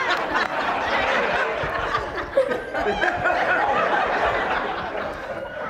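Audience laughing, a dense crowd laugh that tapers off somewhat near the end.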